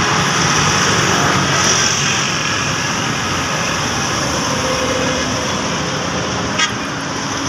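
Steady road traffic noise from a busy highway: trucks, buses, auto-rickshaws, cars and motorbikes running past, with no single vehicle standing out.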